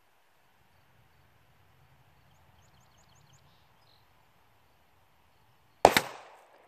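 One shot from a .45 ACP 1911 pistol heard from downrange at the target, a sharp crack near the end that dies away over about half a second, as a full metal jacket bullet kicks up sand just short of the car-hood target.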